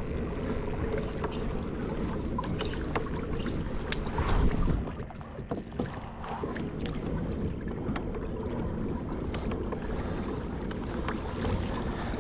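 A kayak moving on the water, with a steady low rumble of wind on the microphone. A few light clicks and knocks come in the first few seconds, and a louder swell of wind and water noise about four seconds in.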